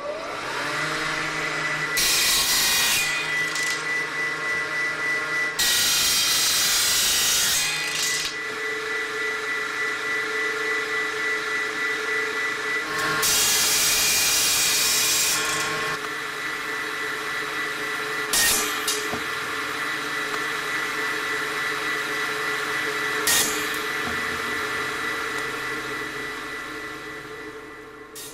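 Electric water pump starting up, its motor's pitch rising over the first second and then running steadily, with several loud hissing rushes of water and air and a couple of sharp clicks.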